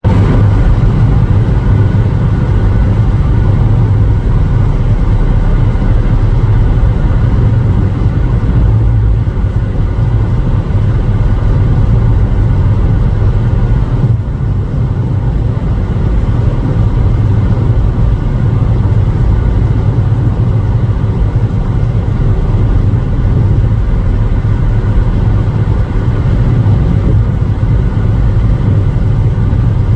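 A car travelling on a highway: a steady low rumble of road and engine noise that does not let up.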